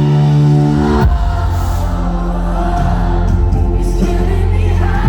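Live pop-rock band playing with an audience singing along. A held chord breaks off with a hit about a second in, and the full band comes in with heavy bass.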